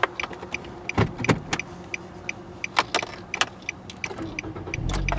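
Nissan Versa's engine being started: near the end its low running sound comes in and carries on. Throughout there is a regular run of sharp clicks and short high beeps.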